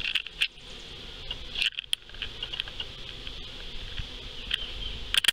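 Honeybees of a newly installed colony buzzing close at the hive entrance, a hum that swells and fades, broken by a few short crackles.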